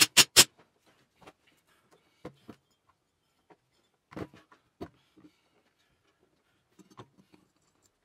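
Cordless impact driver hammering in a few short, loud bursts on the nut at the end of a garden tractor's rear PTO shaft, then scattered quiet clunks and knocks of the steel shaft and parts being handled on a metal bench.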